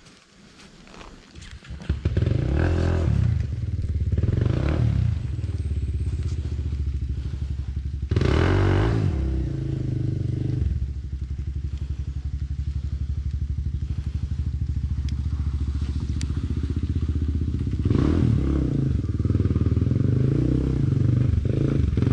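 Kawasaki KLX trail bike's single-cylinder four-stroke engine starts up about two seconds in and then runs at idle. The throttle is blipped several times, with the strongest burst of revs about a third of the way in and more revving near the end.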